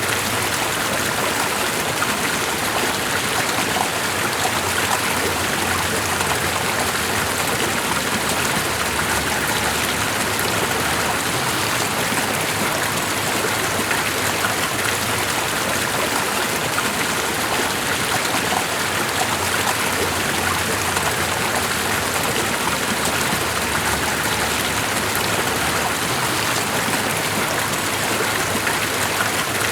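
Flowing water rushing steadily and evenly, with no pauses or separate events.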